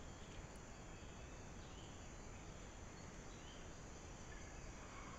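Faint forest ambience: insects trilling steadily at a high pitch, with a few faint short chirps scattered through.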